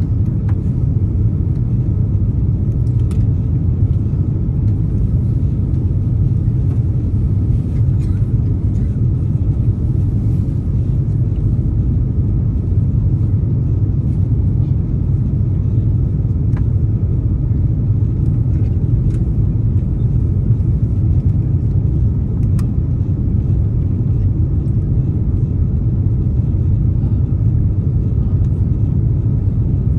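Airbus A330-300 cabin noise heard from a window seat in flight: a steady, loud, low rumble of engines and airflow, with a few faint ticks.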